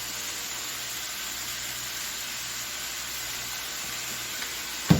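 Food frying in an oiled pan over high heat, a steady even sizzle, with a single knock near the end.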